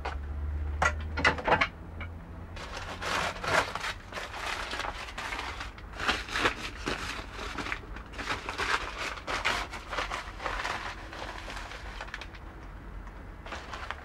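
Thin plastic carrier bag being handled and pulled open, crinkling and rustling, with a few sharp knocks about a second in.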